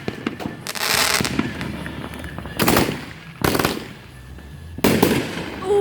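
Fireworks going off at close range: four loud crackling bursts, each under a second long, spaced one to two seconds apart.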